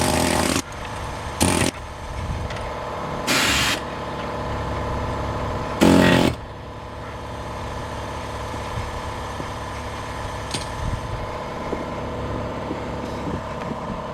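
Pneumatic air hammer with a chisel bit firing in four short bursts over the first six seconds, cutting through the steel bead wires of an old tractor tire. A motor runs steadily underneath throughout.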